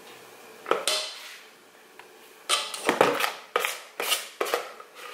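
A small spoon knocking and scraping against a mixing bowl while scooping batter: one knock about a second in, then a quick run of five or six knocks and scrapes in the second half.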